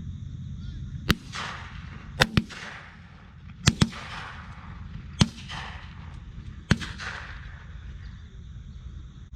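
Shotgun shots on a dove field: seven reports, two of them coming as quick doubles, each followed by a rolling echo.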